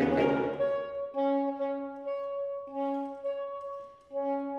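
Saxophone quartet (soprano, alto, tenor and baritone saxophones) playing. A loud, busy chord passage with the low baritone underneath stops about a second in. Then high notes are held steady while a lower note comes in three times, each for about a second.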